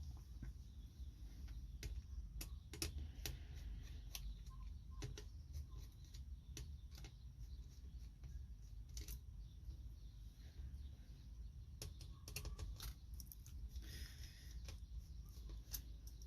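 Irregular light clicks and taps of small hard parts being handled, in clusters over a low steady hum.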